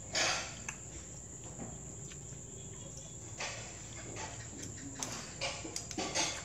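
Metal chopsticks and spoons clinking and scraping against ceramic bowls and plates during a meal, with a short loud clatter just after the start and a run of small clicks in the last couple of seconds. Crickets sound in the background.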